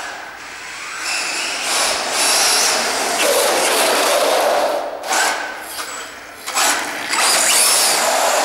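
RC short-course truck with a 9T, 4350 kV brushless motor on a 2S LiPo driving hard on concrete: motor and drivetrain whine mixed with tyre noise, rising and falling in surges as the throttle is worked, dropping off briefly twice in the second half.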